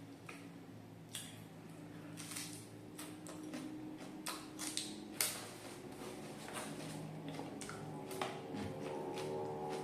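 Close-up eating sounds: crispy fried duck being bitten and chewed, with many short crunches and mouth clicks at irregular intervals.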